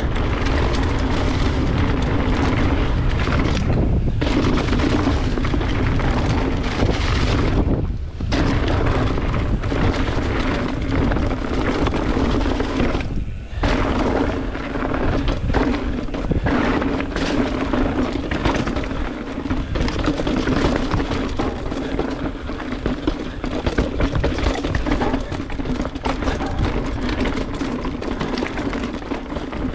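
Riding noise from a mountain bike descending a rough trail: wind buffeting the camera microphone over the rumble of tyres on dirt, rock and dry leaves, with a steady low hum underneath. Three brief lulls come about 4, 8 and 13 seconds in.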